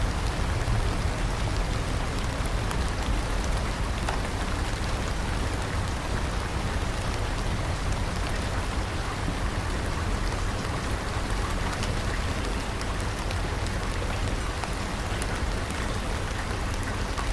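Steady, continuous rain falling, with scattered drop ticks over a low rumble.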